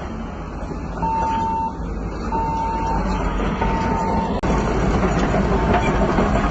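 Heavy earthmoving machine's diesel engine running with its reversing alarm beeping, one steady beep about every second and a half.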